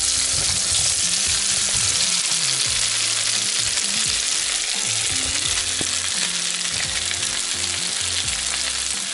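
Slices of boiled potato sizzling loudly and steadily as they are tipped into a pan of clarified butter heated to a light smoke; the fat is hot enough to start frying them at once.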